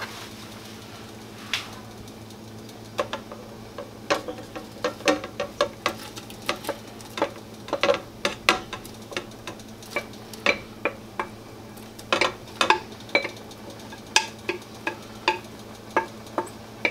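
A utensil clinking and scraping against a glass mixing bowl as shredded chicken is scraped out into a soup pot, in irregular clusters of sharp clicks. A steady low hum runs underneath.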